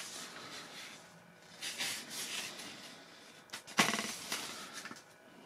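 Handling noise from a foam RC glider being turned in the hands: soft rubbing and rustling of foam and plastic, with a sharp click and then a knock a little under four seconds in.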